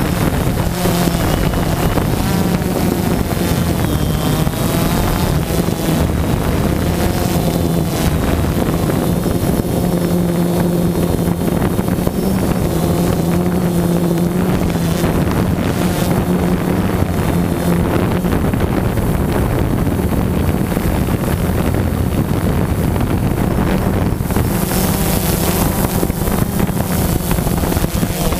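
Quadcopter drone's motors and propellers buzzing steadily, heard from its own onboard camera, with wind noise on the microphone; the motor pitch shifts as it descends and lands. A louder hiss comes in over the last few seconds.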